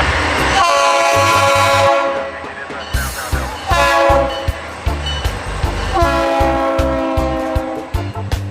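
Train horn sounding three long, steady blasts, over a rhythmic low pulsing.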